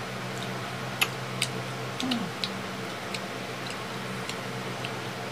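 Sparse, light clicks at irregular intervals as the shell of a boiled balut duck egg is picked off by hand, over a steady low hum.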